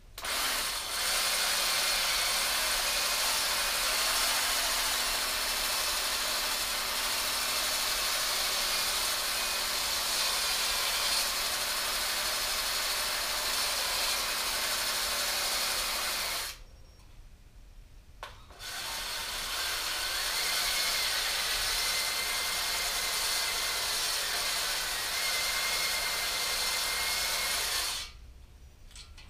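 A drill spinning a cylinder hone in a bore of a small-block Chevy 400 cast-iron engine block, scouring the rust-pitted cylinder wall to break the glaze. It runs steadily for about sixteen seconds, stops for about two, then runs again for about ten seconds.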